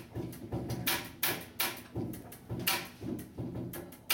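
Instrumental hip-hop backing beat: a steady pattern of sharp snare and hi-hat hits over a low bass line.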